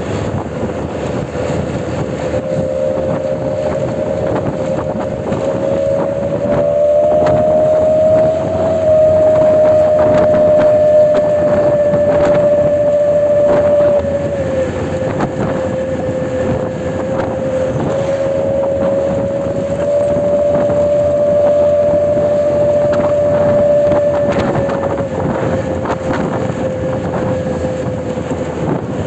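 Bus ship-style air horn (klakson kapal) blowing one long, continuous blast. Its pitch steps up and back down twice, over a steady rush of noise.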